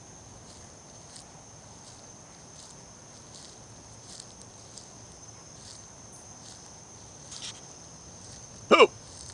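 Night insects, crickets, calling steadily: a continuous high trill with a pulsing chirp repeating about every three-quarters of a second. Near the end a person hiccups once, short and loud.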